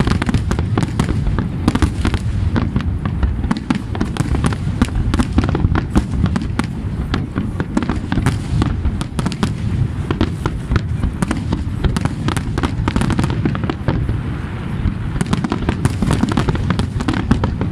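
Large fireworks display: many aerial shells bursting in quick succession, dense sharp bangs over a continuous low rumble.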